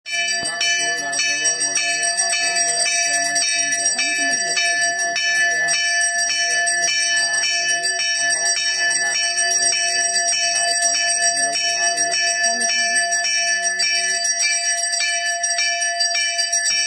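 Temple puja bell rung continuously in a steady rhythm of strikes, its ringing tones sustained throughout, with singing beneath it that stops about 14 seconds in.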